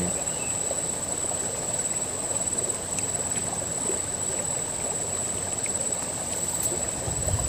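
Shallow river running over gravel and stones: a steady rush and babble of flowing water. A thin, steady, high-pitched insect note sounds above it throughout.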